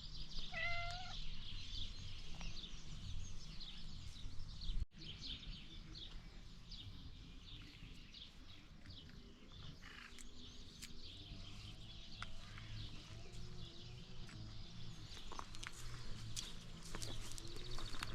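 Chickens and baby chicks calling: many short high-pitched peeps throughout, a short pitched call under a second in, and low wavering calls in the second half.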